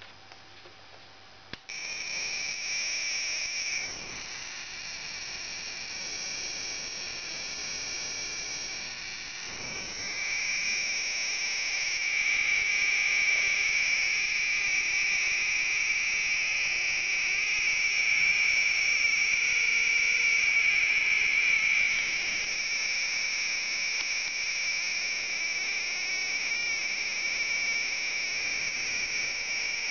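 A vintage Soviet oscilloscope giving off a steady high-pitched electronic whine in two tones. It starts abruptly about two seconds in and gets louder about ten seconds in, with a slight wavering in pitch now and then.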